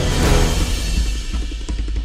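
Soundtrack music with heavy drums: a cymbal crash hit at the start, then a driving drum beat over a deep bass.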